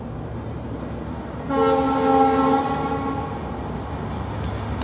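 A loud horn sounding a chord of several steady tones for about a second and a half, starting about a second and a half in, over a steady low rumble.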